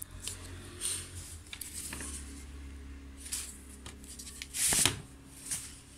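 Sheets of paper rustling as they are handled, in several short bursts with the loudest about three-quarters of the way through, over a low steady hum.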